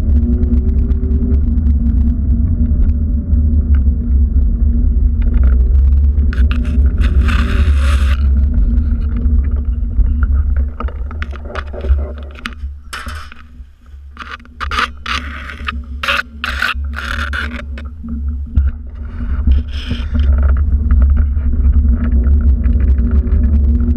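Steady heavy rumble of wind and handling noise on a hand-held action camera during a walk. Around the middle it eases, and there are scattered scrapes and rustles.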